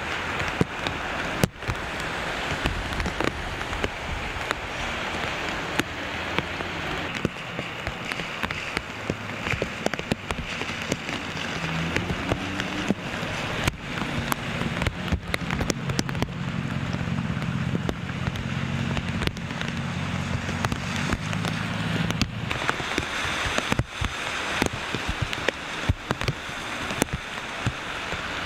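Steady rain, with many sharp clicks of raindrops hitting the plastic bag covering the microphone. A low hum runs for several seconds around the middle.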